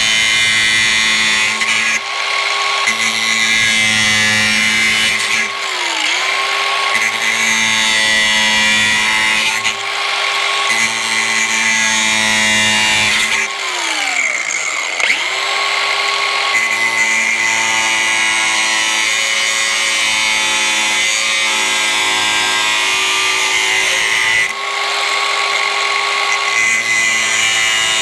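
Cordless DeWalt angle grinder with a cutoff wheel running at high speed and cutting raised ribs out of a plastic hood, a steady whine with grinding noise. Its pitch drops away and spins back up twice, briefly about six seconds in and more deeply around fourteen seconds.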